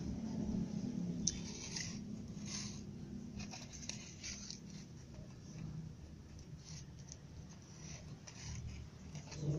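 Kittens licking and nibbling at each other's fur close to the microphone: short, soft, wet clicks and rustles scattered through, over a low hum that is louder in the first couple of seconds.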